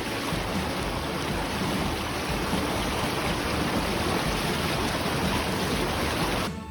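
Rushing river water over rapids: a loud, steady rush that starts and stops abruptly.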